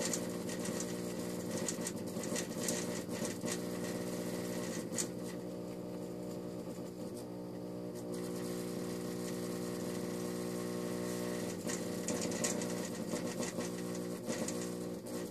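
Fluorescent fixture running an end-of-life Sylvania F96T12 tube: a steady ballast hum with irregular crackling and sputtering clicks over it, which ease off for a few seconds mid-way and return near the end. The lamp is failing at the end of its life.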